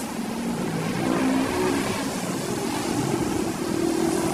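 A motor vehicle engine running under a steady hum, its pitch climbing in steps.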